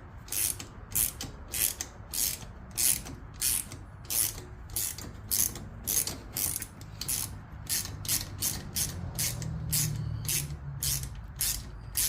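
Ratchet wrench cranking a tailshaft bushing puller on a 200-4R transmission, the pawl clicking in steady strokes about twice a second as the bushing is drawn out. A low rumble grows under the clicking in the second half.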